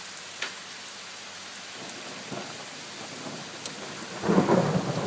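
Steady hiss of heavy rain with a few sharp drop ticks, then about four seconds in a loud rumble of thunder builds up, following a lightning flash.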